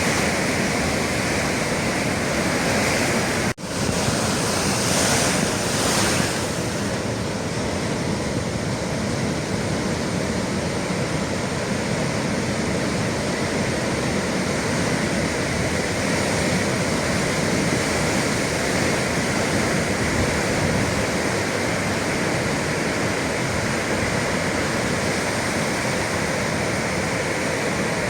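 Atlantic Ocean waves breaking on the shore in a steady wash of surf. A brief cut-out comes about three and a half seconds in, and a louder surge of breaking water follows shortly after.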